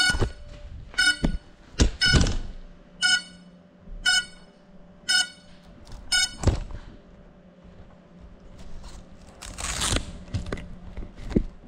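Crashed FPV drone's locator beeps: short, high electronic beeps about once a second that stop after about six seconds. Several loud knocks and thuds fall in between, with a short rushing noise near the end. No motors are running.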